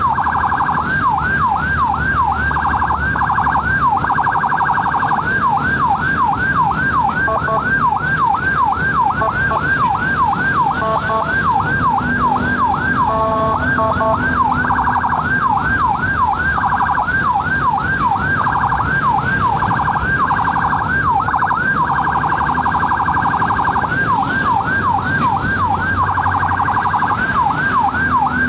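Ambulance electronic siren sounding continuously, a fast yelp of about two to three rising-and-falling sweeps a second that switches several times to a much faster warble, over the low rumble of the moving vehicle.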